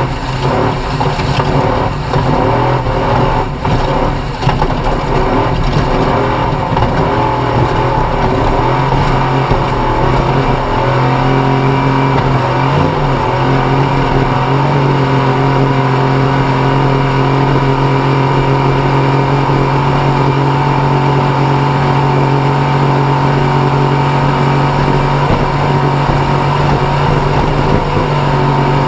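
Off-road race vehicle's engine running hard at high revs under load, with a few brief lifts off the throttle in the first several seconds, then holding a steady high drone.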